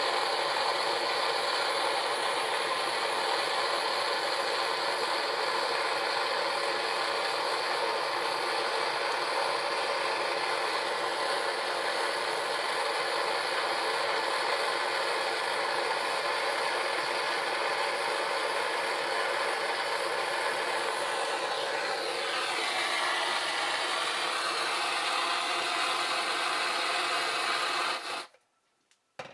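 Handheld GoSystem gas blowtorch burning with a steady hiss as it heats an aluminium joint for brazing. Its tone shifts slightly about three-quarters of the way through, and the flame sound cuts off suddenly near the end.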